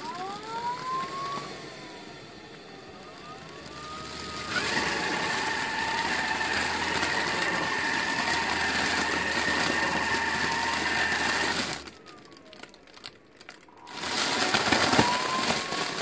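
Laveo Dry Flush toilet's electric flush mechanism running after its button is pressed: the motor twists the Mylar bag to seal the waste and draws a fresh section of bag down. A whir with changing pitch for the first few seconds turns into a louder, steady whir that stops suddenly about twelve seconds in. Another rising whine starts near the end.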